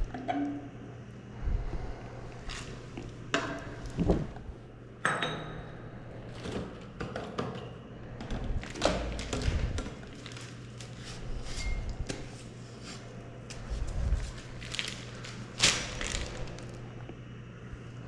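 Irregular knocks, taps and clinks of small hard objects being handled and set down, over a steady low hum. The sharpest knock comes near the end.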